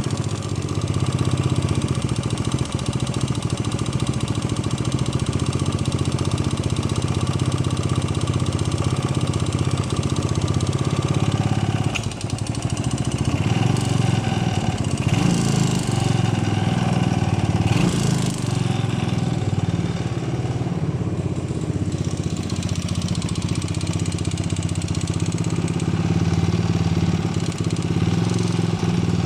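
A 125 cc motorcycle engine running steadily, with a clacking noise coming from the engine. The engine note changes and is busier between about 12 and 18 seconds in.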